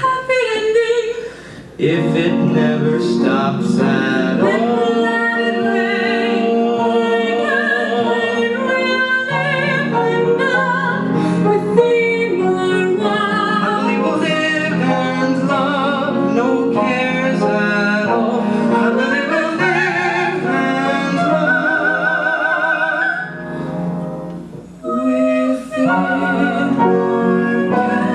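Show-tune duet sung with vibrato over instrumental accompaniment, with a short break between phrases near the start and another about three-quarters of the way through.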